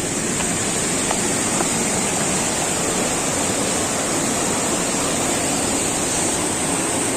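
Waterfall rushing steadily, a loud, even roar of falling water with a constant high hiss on top.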